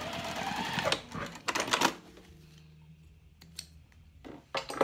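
Juki TL2010Q sewing machine stitching a short seam through cork fabric for about a second, then stopping. Several sharp clicks and knocks follow as the work is handled and moved, with a few more near the end.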